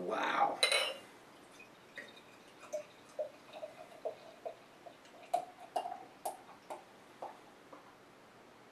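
Highly carbonated beer glugging out of a glass bottle as it is poured into a glass: a run of short, irregular gurgles, about two a second, that starts about two seconds in and dies away near the end.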